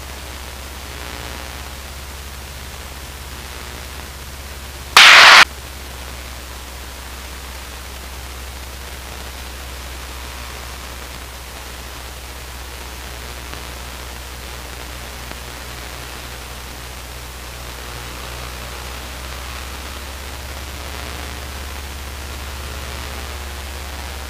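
Luscombe 8A light aircraft in cruise, heard through the cockpit headset intercom: a steady hiss over a low drone from its four-cylinder engine, throttled back to about 1900 RPM. One short, loud burst of radio static comes about five seconds in.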